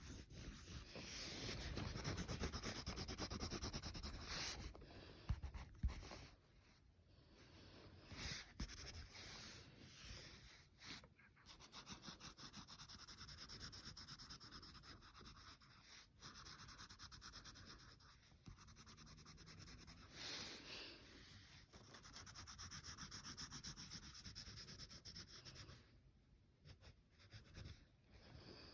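Heavy, exaggerated breathing close to the microphone in long drawn breaths several seconds each, the loudest in the first few seconds, over soft scratching of coloring strokes on paper.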